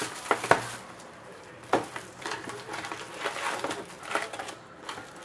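Cardboard trading-card hobby box being handled and opened by hand: a string of sharp clicks, taps and scrapes of card stock, the loudest about half a second in and just under two seconds in.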